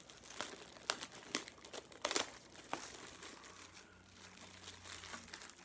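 Plastic packing wrap being handled and pulled away, crinkling irregularly with a few sharp crackles.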